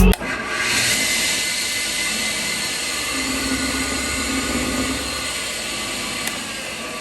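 Steady whirring machine noise that fades slowly.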